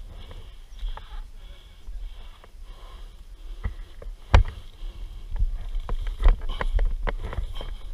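Wind rumbling on a helmet-mounted camera's microphone with a rider's breathing, and sharp knocks and clatters as a fallen Yamaha dirt bike is hauled upright with its engine off. The loudest knock comes about four and a half seconds in, followed by a cluster of smaller ones.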